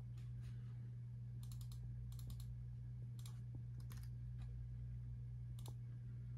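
A steady low hum with a few faint, scattered clicks, some in quick little clusters.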